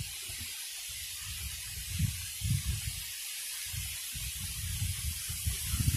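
Steady hiss with irregular low rumbling gusts of wind buffeting the microphone.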